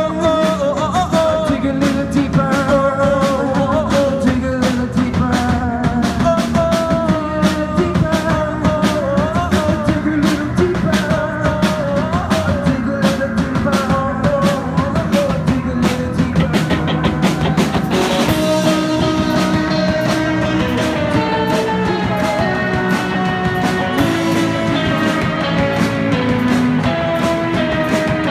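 Live rock band playing on stage: electric bass, drum kit and keyboard synthesizer, with a steady beat. About two-thirds of the way through a cymbal crash comes in and the cymbals stay busier after it.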